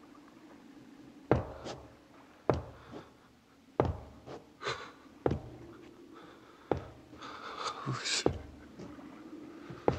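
About half a dozen sharp thuds, one every second or so, over a faint steady low hum.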